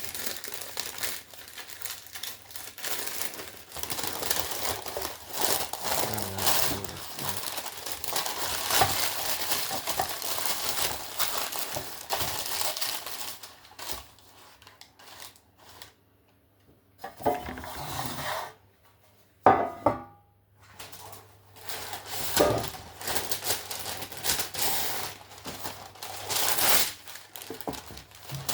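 Baking paper crinkling and tearing as metal cake pans are lined, with the pans clattering. The rustling goes on for most of the time. After a short, nearly quiet pause past the middle come a few sharp clanks, the loudest about two-thirds of the way in.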